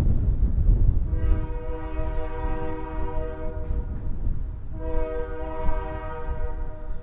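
Diesel locomotive horn sounding two long blasts, the first about a second in and the second near the end. Wind buffets the microphone with a low rumble at the start.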